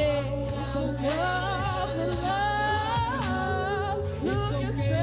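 Live hip-hop performance: a sung vocal line that slides between notes over a steady bass line and beat.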